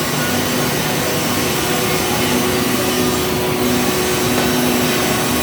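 CNC drilling machine running at steady load: a loud, even hiss with a low hum underneath.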